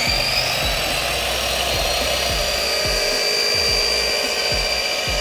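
Ridgid miter saw running at full speed with a steady high whine as its spinning blade is lowered slowly through a wooden board.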